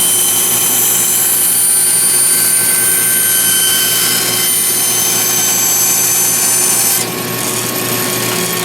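Electric reciprocating saw running steadily with a whining motor. Its sound drops a little about seven seconds in.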